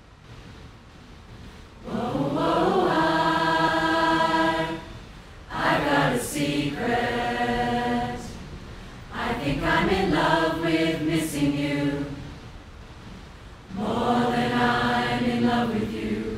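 Large women's choir singing in held chords: after a couple of quiet seconds, four sung phrases with short pauses between them.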